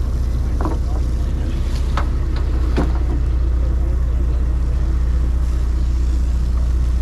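Boat engine idling, a steady low rumble, with a few short knocks in the first three seconds.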